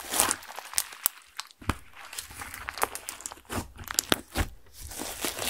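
Hands kneading and pressing clear slime thickened with crushed makeup and glitter, making a quick, irregular stream of crackles and clicks.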